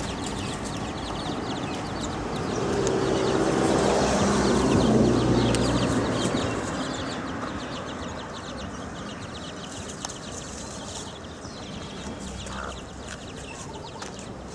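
Chickens clucking and chirping while foraging, with a louder rushing swell of noise for a few seconds in the middle.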